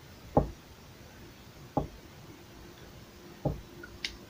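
Three dull knocks about a second and a half apart, with a faint light click near the end, from the plastic motor housing of a disassembled Bort angle grinder being handled on the workbench.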